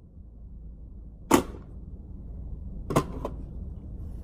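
Sharp metallic clacks of a Magpul magazine being pushed into the magazine well of an AR-15 pistol: two loud ones about a second and a half apart, the second followed closely by a smaller one. The magazine is failing to lock in.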